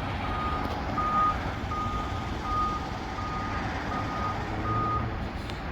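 Vehicle reversing alarm beeping, a single steady tone repeating about one and a half times a second and stopping about five seconds in, over a low engine rumble.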